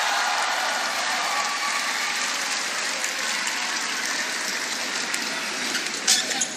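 Arena crowd cheering and clapping in a steady wash of noise that slowly fades. About six seconds in comes a sharp crack of a badminton racket striking the shuttlecock as play starts.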